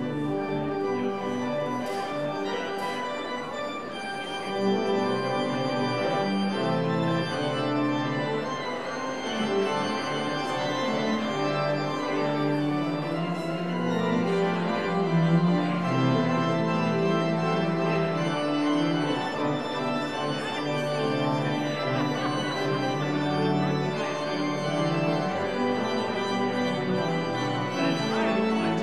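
Church organ playing a piece of held chords over a moving bass line.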